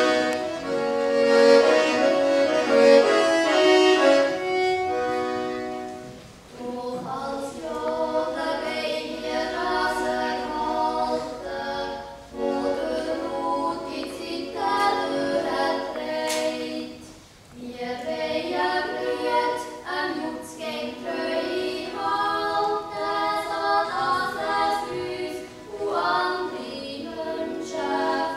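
Music: a group of young voices singing a Swiss folk song in harmony, phrase by phrase, with short pauses between the phrases.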